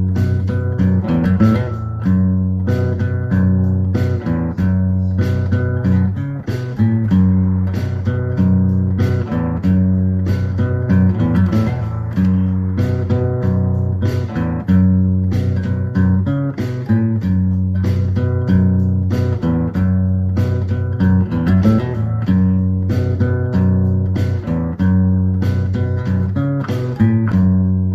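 Background music: guitar-led instrumental with a steady bass line and a regular beat.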